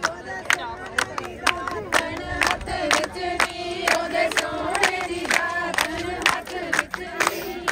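A group of women singing Punjabi boliyan together over steady giddha hand-clapping, about two claps a second.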